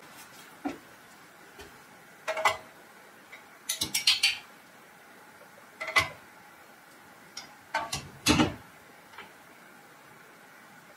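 A loft ladder being worked down from an attic hatch with a hook pole: scattered metallic clinks and knocks, a few at a time, with the loudest clank about eight seconds in.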